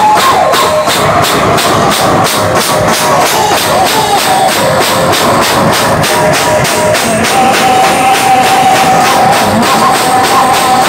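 Band music blaring from horn loudspeakers, loud and steady: an electronic drum pad, a Roland SPD-20, keeps a fast even beat of about four to five hits a second under a melody of long held notes.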